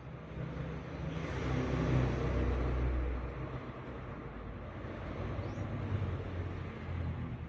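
Ford E150's V8 engine running, swelling louder for about two seconds a second in, then settling back to a steady run. The engine has set a cylinder 8 misfire code (P0308).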